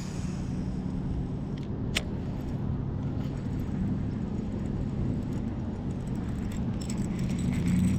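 A steady low motor hum, with a single sharp click about two seconds in.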